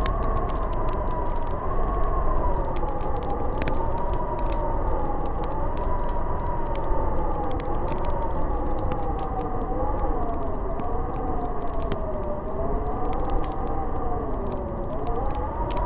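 Snowstorm wind howling: a wavering whistle that slowly rises and falls in pitch over a deep steady rumble, with light scattered crackling ticks throughout.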